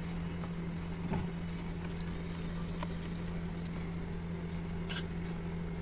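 Hand beating thick besan batter in a steel bowl: soft, even slapping and squelching, with a few faint clicks, over a steady low hum.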